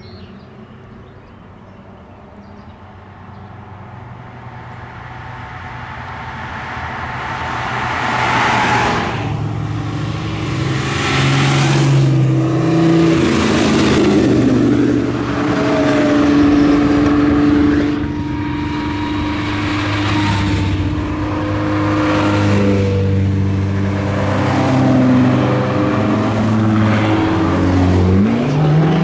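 Several Ferrari sports cars driving past one after another, among them a classic 330 GTO with its V12. The engines grow louder over the first several seconds as the line approaches, then pass close in a series of swells, their pitch stepping up and down through gear changes, with a rising rev near the end.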